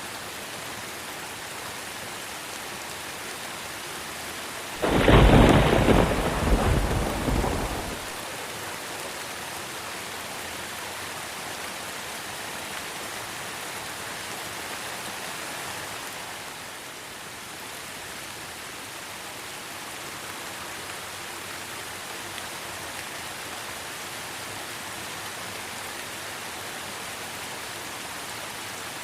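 Steady heavy rain falling, with one loud clap of thunder about five seconds in that rumbles and fades out over about three seconds.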